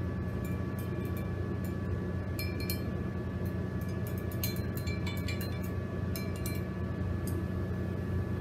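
A stir stick clinking against the inside of glass jars as coloured water is stirred: light clinks with a short ring, coming in small clusters. A steady low hum runs underneath.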